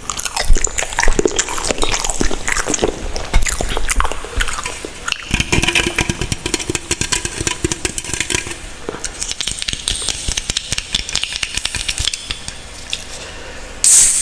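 Close-miked wet, squishy clicks and crackles of food being handled, a dense stream of small sticky sounds.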